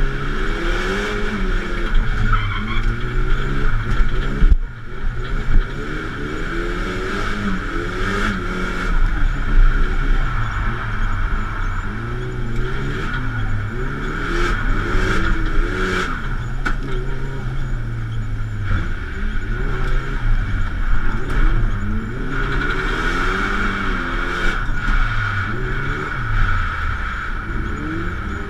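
Drift car's engine heard from inside the cabin, its revs climbing and falling again and again as the car is driven sideways through a run, with a brief dip in the sound about four and a half seconds in.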